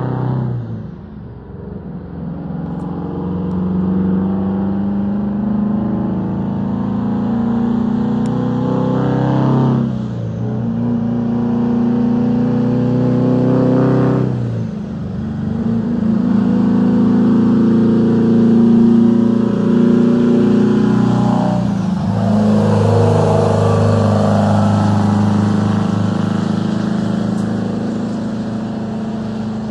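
Detroit Diesel 8V92 two-stroke V8 in a cab-over Kenworth truck accelerating hard through the gears. The engine note builds, then drops briefly at each of about four gear changes. It is loud as the truck comes up and passes, then fades a little as it pulls away.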